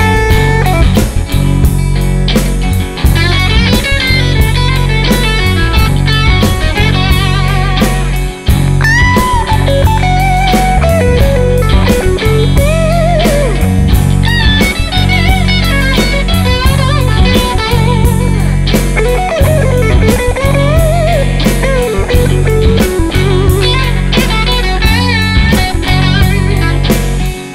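Blues-rock band recording: a lead electric guitar plays with bent, wavering notes over bass and a drum kit.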